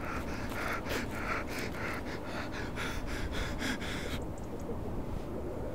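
A man panting hard, quick heavy breaths about three or four a second, that stop about four seconds in.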